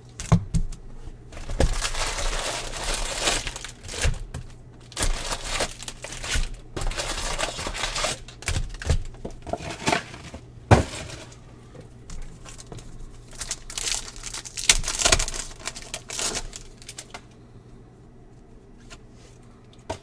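Trading-card pack wrappers being torn open and crinkled in several bursts, with a sharp tap about halfway through as the cards are handled.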